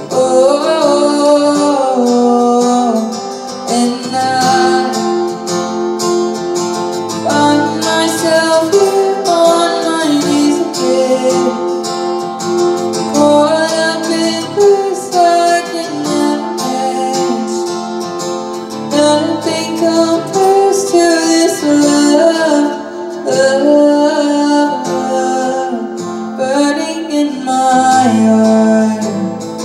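A woman singing a slow melody to strummed acoustic guitar, performed live through a microphone.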